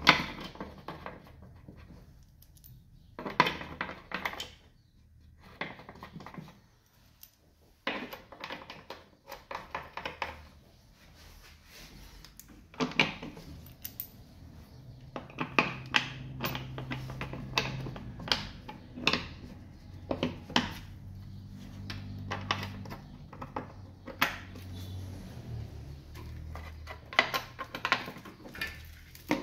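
Irregular clicks, knocks and clatter of hand tools and parts being handled on a Honda Civic engine, with a low hum underneath through the middle.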